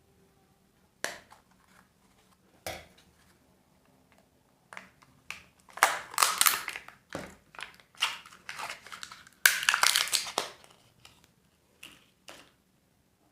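Packaging being crinkled and torn open by hand: a few sharp clicks, then bursts of crackling wrapper noise, loudest about halfway through and again a few seconds later.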